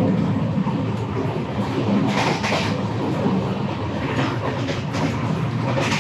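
Steady running noise of a moving Indian Railways first-class AC sleeper coach, heard from inside the coach, with a few sharper knocks about two seconds in and again past four seconds.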